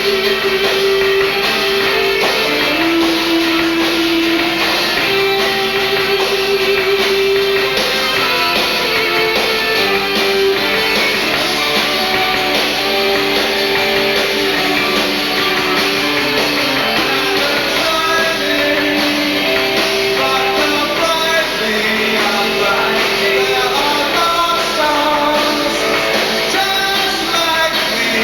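A band playing a rock-and-roll song led by guitar, loud and steady, with sustained melodic notes running on without a break.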